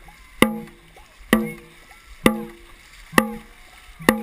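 Dragon boat drum struck in a steady beat, about one hit every second, five strong strikes in all, each with a low ringing tone that fades before the next. The beat sets the paddlers' stroke rate.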